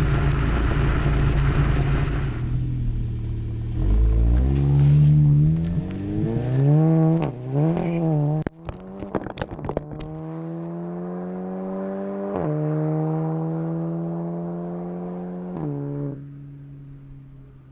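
Seat Leon Cupra's turbocharged 2.0-litre four-cylinder through a Milltek Sport exhaust. It pulls hard at first, then the revs rise and fall several times, and a burst of sharp crackles comes about halfway through. Afterwards the engine pulls steadily with the pitch slowly climbing, steps down near the end and goes quieter.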